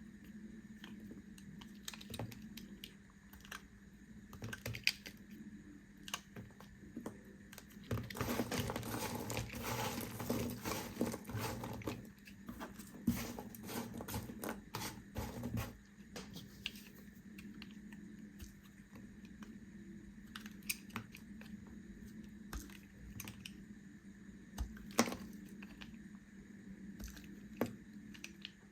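A knife cutting through bars of soap: scattered crisp clicks and crunches, with a denser crumbling, crackling stretch starting about eight seconds in and lasting several seconds.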